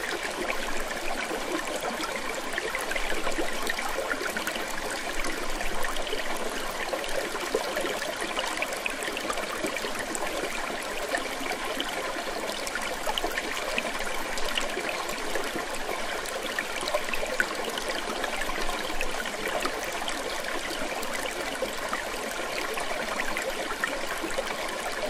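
Running water, trickling steadily without a break: a sound used to make the listener need to pee.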